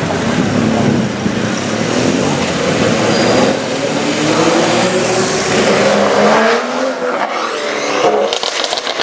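2016 BMW M135i's turbocharged straight-six with a Remus cat-back exhaust accelerating, its engine note rising steadily in pitch for several seconds. It then lets off, and near the end the exhaust gives a quick burst of crackles and pops.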